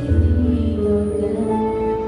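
Music from a live song performance: held chords over a low bass note, with a new higher note coming in about one and a half seconds in.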